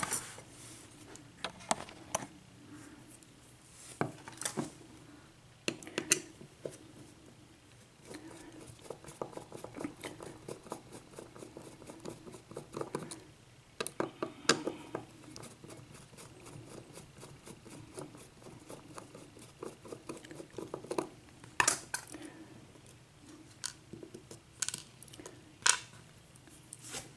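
Small metal clicks, taps and scrapes of a Sargent mortise lock cylinder being taken apart by hand with small tools, with a run of quick, fine ticks through the middle.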